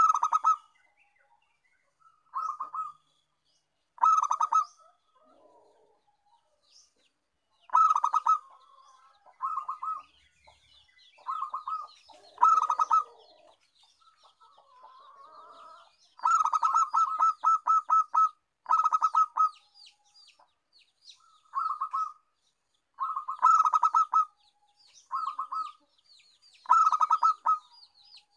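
Zebra dove (perkutut) cooing: about a dozen short phrases of rapid staccato coos with pauses between them, several phrases coming close together about 16 to 20 seconds in. This is the call used as a lure for wild perkutut.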